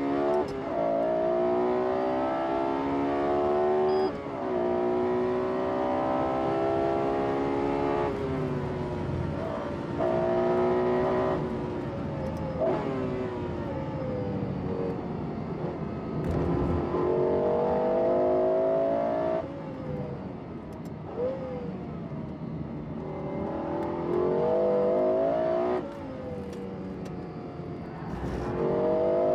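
Lexus LFA's 4.8-litre V10 revving hard under acceleration. Its pitch climbs steeply and drops abruptly at each gear change, with quieter stretches where it falls away as the car lifts off before climbing again.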